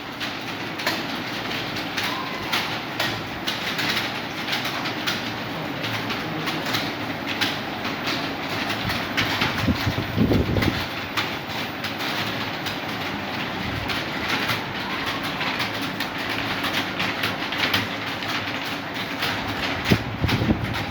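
Many Acer computer keyboards being typed on at once by a room full of typists: a dense, continuous clatter of key clicks, with a couple of heavier thumps about ten seconds in and near the end.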